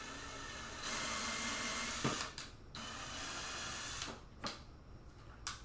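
Power drill running while drilling a hole, in two runs: a longer one that grows louder about a second in, then a short pause and a second run of about a second. A knock sits between the runs, and a few clicks follow.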